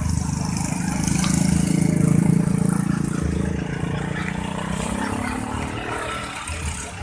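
Engines of motor scooters and a road-train passing close, loudest about two seconds in, with the engine note falling away near the end.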